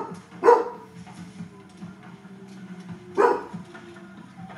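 A dog barking twice, two single short barks about three seconds apart, over a faint steady low hum.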